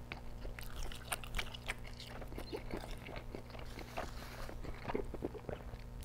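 Close-up chewing of a bite of microwaved deep-dish cheese pizza: many small wet clicks and smacks of the mouth, over a faint steady low hum.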